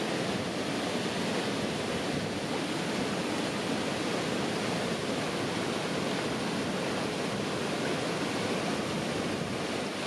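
Waterfall in heavy monsoon flow, water pouring over rock ledges in a steady, unbroken rush.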